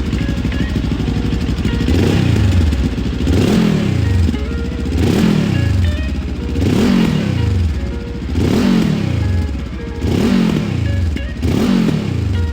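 Benelli TRK 702 X parallel-twin engine, breathing through a GPR Furore slip-on exhaust, idling and then blipped again and again. After about two seconds it is revved roughly once every second and a half, the pitch rising and falling back to idle each time, about seven revs in all.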